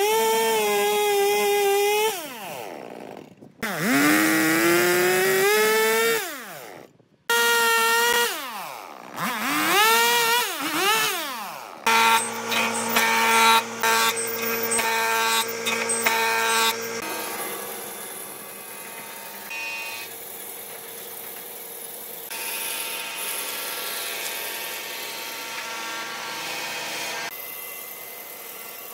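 Stihl chainsaw cutting through a log, its engine pitch dropping and climbing again several times as the cut loads and frees the chain. About twelve seconds in, a stationary woodworking machine runs loudly for a few seconds, then a band saw cuts steadily and more quietly through a log.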